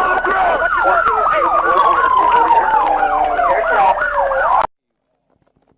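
Several police sirens sounding at once, one slow wail over quick yelping sweeps. They cut off abruptly about three-quarters of the way through, leaving near silence.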